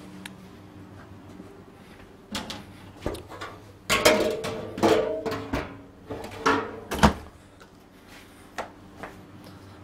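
Metal palette knife scraping across a chocolate-covered cake and knocking against the edge of a stainless steel cake frame, in a run of short, uneven strokes, the loudest about four and seven seconds in. A steady low electrical hum underneath.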